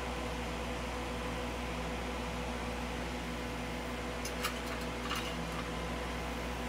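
Steady electrical hum with fan-like noise, broken by two short clusters of clicks about four and five seconds in.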